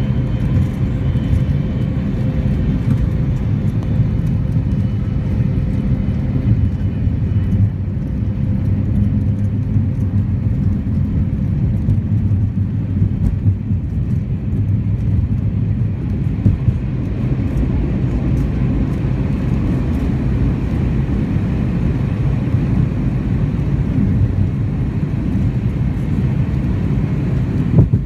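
Airliner cabin noise during the takeoff roll: a steady low rumble of the jet engines at takeoff power and the wheels on the runway, with a faint steady whine in the first several seconds.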